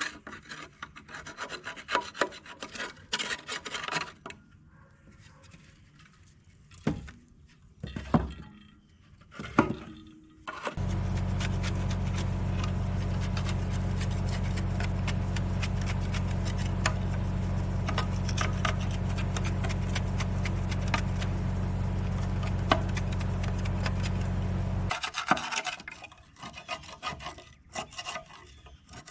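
Scraping and rubbing on a dirty metal air filter housing as caked dirt is cleaned out, with a few knocks. About eleven seconds in, a machine with a low hum starts and runs steadily for about fourteen seconds, with a fine rattle over it, then stops and the scraping resumes.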